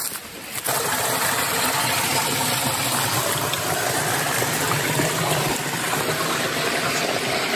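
Small rocky stream running close by, a steady rushing of water over stones that starts abruptly about a second in.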